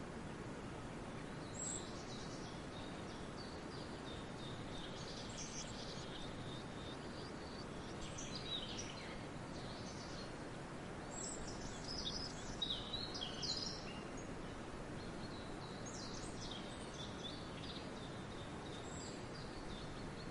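Steady wind noise over a grain field, with swallows twittering in scattered bursts of short high chirps, busiest a little past the middle.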